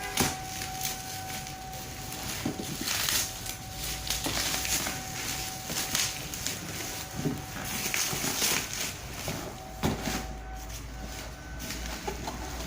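Rustling of plastic and cardboard packaging being handled, with scattered clicks and knocks.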